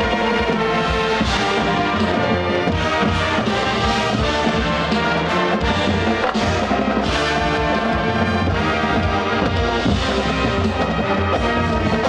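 High school marching band playing: sustained brass chords over drum hits from the battery and front ensemble percussion.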